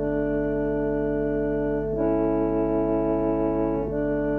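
Electronic keyboard playing held chords on its harmonica voice, moving to a new chord about two seconds in and again near the end, over a steady low hum.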